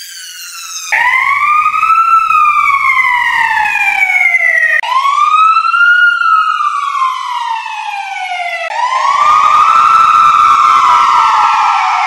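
Fire truck wail siren in slow rise-and-fall cycles: a thin, high falling tone for about the first second, then three cycles that each rise for about a second and fall for about three. The versions change abruptly from one cycle to the next, and the last is fuller, with a flat top and a low rumble beneath it.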